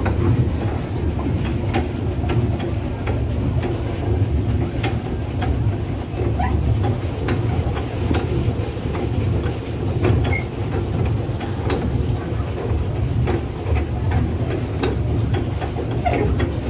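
Swan paddle boat moving across the water: a steady low rumble with scattered clicks and rattles from its mechanism.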